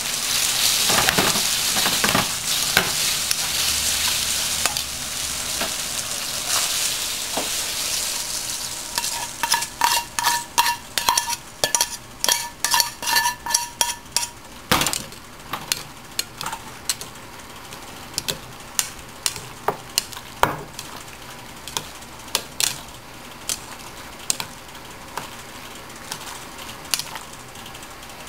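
Spaghetti with bacon and onion sizzling in a hot frying pan as it is tossed. Then a utensil clicks and scrapes against an enamel bowl as the pasta is stirred into raw egg-yolk sauce to set it with the leftover heat. The strikes come fast at first and make the bowl ring, then grow sparser.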